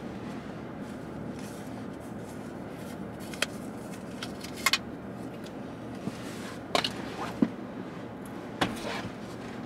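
Steady low background noise inside a parked car, with a few short, light clicks and rustles from hands handling a pair of underwear and reaching into the back seat.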